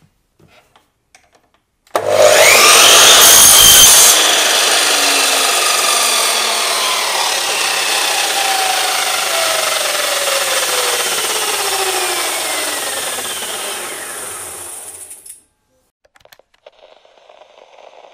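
Drop saw (mitre saw) switched on about two seconds in, its motor whine rising as it spins up and cuts through a clamped timber board, loudest during the cut. After the trigger is released the blade coasts down with a long falling whine for about eleven seconds before stopping. Faint TV-static hiss near the end.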